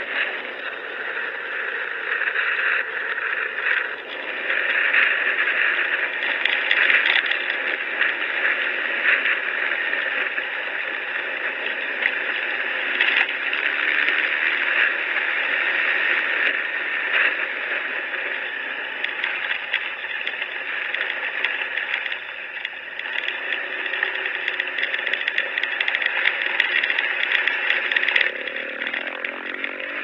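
Motorcycle riding noise: wind buffeting the handlebar-mounted camera's microphone over the engine and tyres on the road, with small rattles and knocks from the bike.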